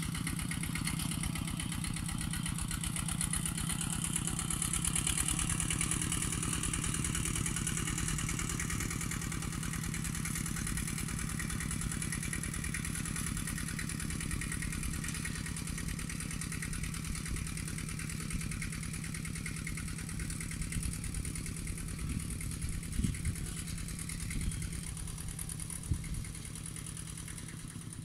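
Kubota two-wheel walking tractor's single-cylinder diesel engine running steadily under load as it works the field, with a fast even chugging rhythm. A few sharper knocks come through near the end.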